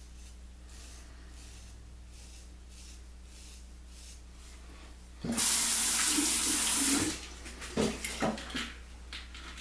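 Sink tap turned on and running hard for about a second and a half, then shut off, followed by a few splashes and drips in the basin.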